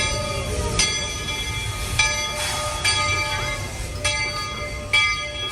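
Walt Disney World Railroad steam train running: a steady low rumble under sustained steady tones that shift abruptly every second or so.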